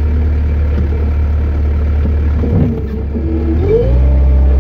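Skid loader engine running with a steady hum, heard from the cab. Near the end it revs up, rising in pitch and holding higher as the loader moves off with a load of hay bales.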